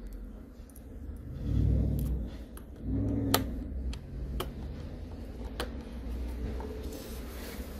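Precision screwdriver working the small screws of a MacBook Pro's display hinge, making sharp metal clicks every second or so, with dull handling thuds.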